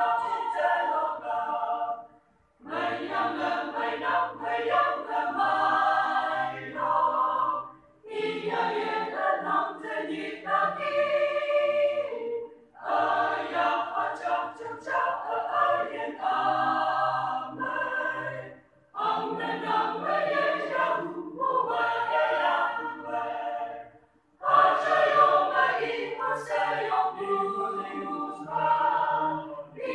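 A choir singing unaccompanied, in phrases of about five seconds separated by brief silent breaks.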